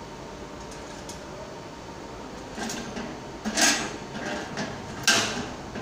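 The manual coin mechanism of a sheet-metal napkin vending machine being worked by hand, making a run of metallic clunks and rattles that start about two and a half seconds in. The two loudest come about three and a half and five seconds in.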